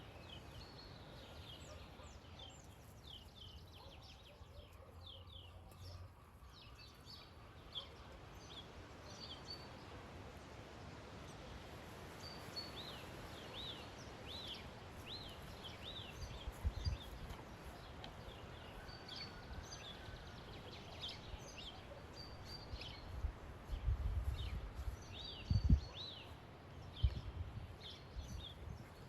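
Small birds chirping and singing over a steady outdoor background hiss, with short repeated calls throughout. Low thumps and rumbles come in briefly about halfway and again in the last few seconds.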